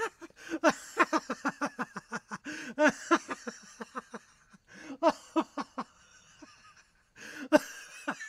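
Laughter: a fast run of short 'ha' sounds, breaking off about four and a half seconds in and again about seven seconds in before a last burst near the end.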